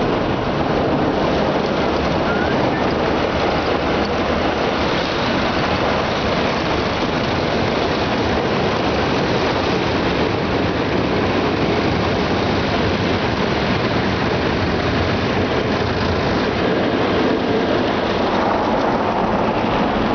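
Automatic car wash's rotating brushes scrubbing along the side of the car with water spraying, heard from inside the car's cabin as a dense, steady noise.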